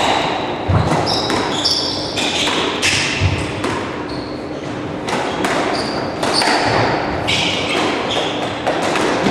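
Squash ball being struck by rackets and thudding off the court walls, with rubber-soled shoes squeaking sharply on the wooden court floor. The two heaviest thuds come in the first few seconds; after that, shoe squeaks and footsteps go on as the players move around the court.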